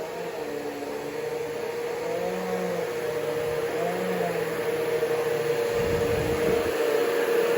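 Vacuum cleaner running with a steady hum, growing slightly louder through the pass, with a brief low rumble about six seconds in.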